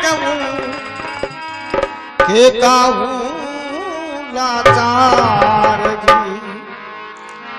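Rajasthani devotional bhajan: a harmonium holds steady notes while the singer draws out long, wavering vowels without words, with a few hand-drum strokes. The music thins out and grows quieter near the end.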